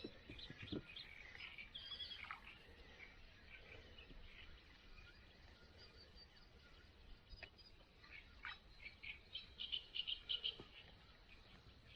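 Faint outdoor quiet with scattered short, high chirping animal calls and a quick run of them near the end.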